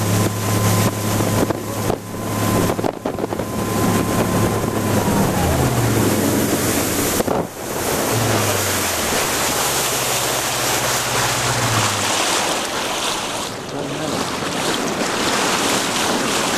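Wind buffeting the microphone and water rushing past a motorboat's hull on a run across open water. Under it a boat engine hums steadily, drops in pitch about five seconds in as it throttles back, and runs again from about eight to twelve seconds.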